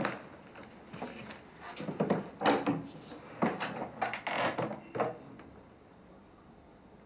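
A wooden door pulled shut by its lever handle, the latch clicking at the start, followed by a run of knocks, clunks and rattles over the next few seconds.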